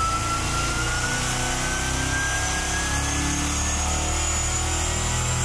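A BluePrint crate V8 engine runs under load on a SuperFlow engine dynamometer during a power pull, its revs climbing slowly and steadily.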